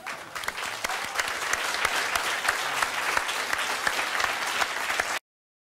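Audience applauding: dense, steady clapping that cuts off abruptly near the end.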